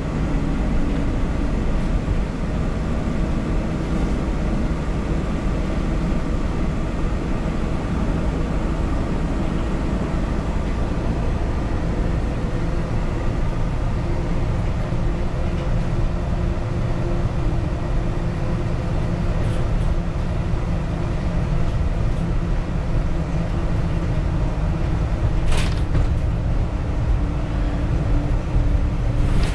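Steady drone of a city bus under way, heard from inside the passenger cabin: engine and road rumble with a faint whine held at a few steady pitches. A brief sharp click about twenty-five seconds in, and a few more clicks near the end.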